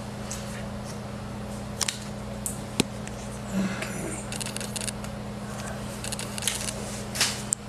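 Small sharp clicks and a crinkling rustle of adhesive tape being handled by hand at the ear, over a steady low electrical hum.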